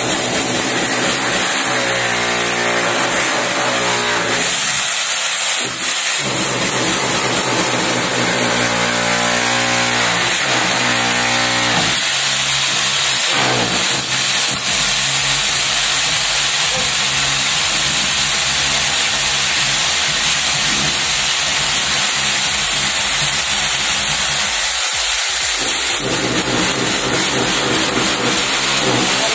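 INGCO 1500W rotary hammer in chisel (demolition) mode, its chisel bit hammering continuously into a concrete column. The blows come rapid and steady, chipping away the concrete.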